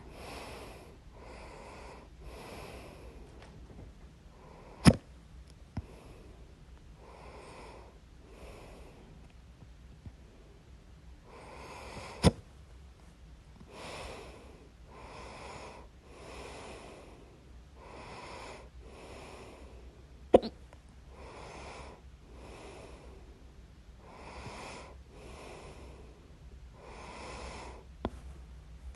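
A person hiccuping: three sharp, loud hiccups about eight seconds apart, with a fainter one near the end, and steady audible breathing in and out between them.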